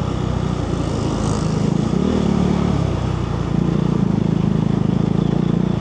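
Motorcycle engine running steadily while being ridden through traffic, with road and air noise; the engine note wavers a little in the first half and holds steady over the last couple of seconds.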